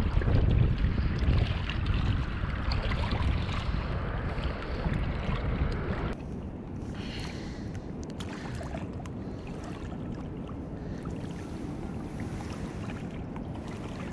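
Wind rumbling on the microphone over a steady rush of water. About six seconds in it changes abruptly to a quieter, even outdoor hiss with a few faint ticks.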